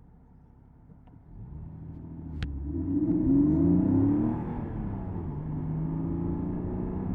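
Porsche Boxster S 987.2's flat-six engine pulling away under acceleration, revving up from a quiet start about a second and a half in. Around four seconds in it drops back to a steadier, lower note. A single sharp click sounds as the revs begin to climb.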